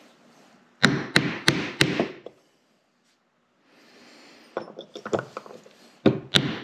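Hammer blows on a screwdriver used as a punch, staking the metal over a bearing to keep it in its seat in the linear actuator motor's end housing. Four quick sharp strikes come about a second in, lighter taps follow around the middle, and two more sharp strikes come near the end.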